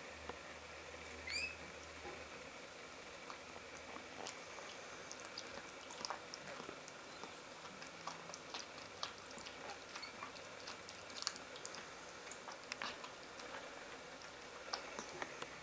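Mother cat licking and cleaning a newborn kitten: a run of faint wet clicks and smacks. About a second in, a newborn kitten gives one short rising squeak.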